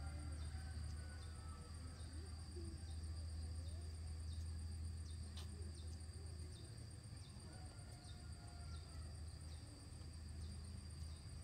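Insects trilling in two steady high tones, with a faint tick about twice a second, over a low steady rumble.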